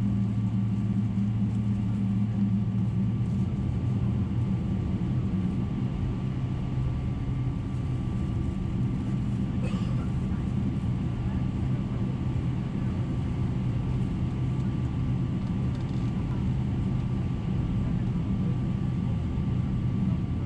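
Steady cabin noise inside a Boeing 777-300ER in flight or on the move, heard from a window seat: the drone of its GE90-115B jet engines and the airflow, a low steady hum with a faint high whine above it.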